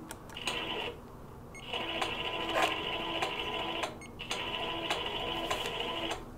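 Longarm quilting machine stitching in three runs of a steady whirring hum: a short burst near the start, then two longer runs with a short break about four seconds in. This is free-motion thread painting.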